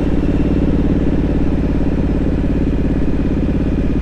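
2017 Triumph Street Scrambler 900's parallel-twin engine running steadily at an unchanging engine speed.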